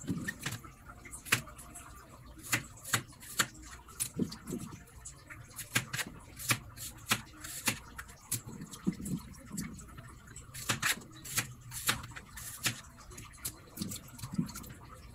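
Kitchen knife slicing firm little kamias (bilimbi) fruits on a plastic cutting board, the blade knocking sharply on the board in an irregular run of about two cuts a second.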